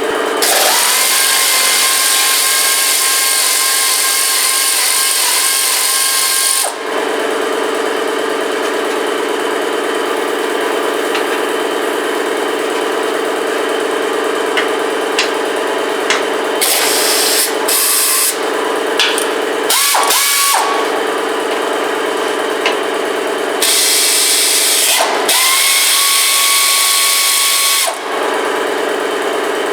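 Pneumatic air tool spinning bolts out of an engine skid plate in several runs, a long one at the start, short ones in the middle and another long one near the end, each with a rising whine as it spins up. An air compressor runs steadily underneath.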